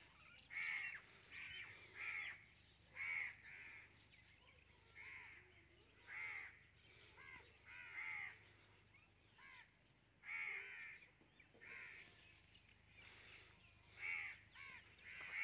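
Faint bird calls: short calls repeated irregularly every second or two, with a brief pause partway through.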